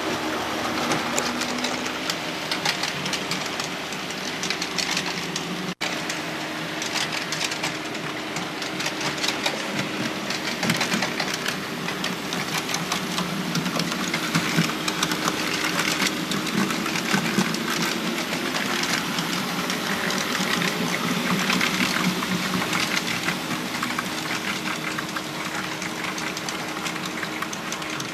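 HO scale model freight train running along its track: a steady mechanical hum from the locomotive models with dense fine clicking of the wheels over the rails. The sound briefly cuts out about six seconds in.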